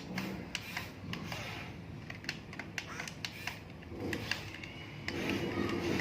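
Small electric motor and plastic gearbox of an RC toy construction vehicle working, with repeated sharp clicks and ticks; about five seconds in a steadier motor whine starts up.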